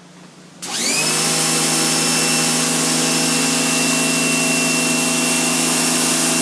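An 1800 psi electric pressure washer starting up about half a second in. Its motor spins up with a brief rising whine, then runs steadily at full speed with a strong hiss.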